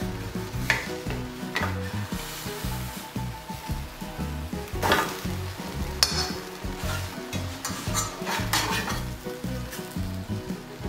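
Pancake batter sizzling in an iron frying pan while a metal turner and a wooden spatula scrape and knock against the pan, several sharp strokes as the soft, barely set pancake is pushed around and turned.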